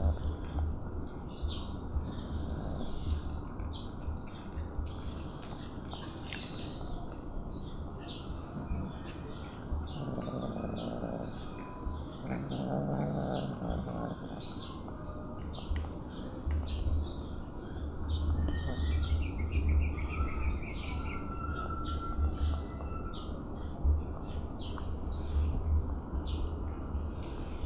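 Kittens eating wet food, with quick wet chewing and smacking clicks, a few short pitched calls and a steady low rumble underneath.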